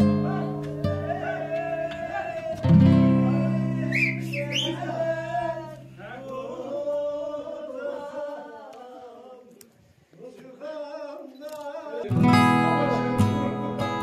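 Background music: acoustic guitar strumming with a singing voice. The guitar thins out past the middle and briefly goes quiet, then comes back full strength near the end.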